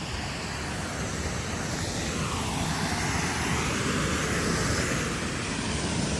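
Waterfall rushing: a steady, loud hiss of falling water that swells slightly over the middle of the stretch.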